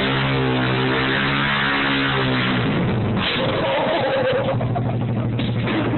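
Pit bike's small single-cylinder engine running at steady revs, then dropping off about two and a half seconds in and running rougher.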